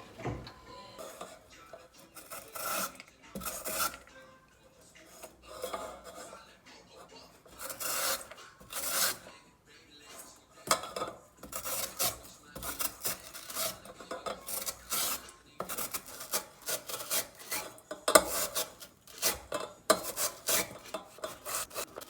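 Raw potato being grated on a grater for potato pancake batter: repeated rasping strokes, several a second, in runs with short pauses between.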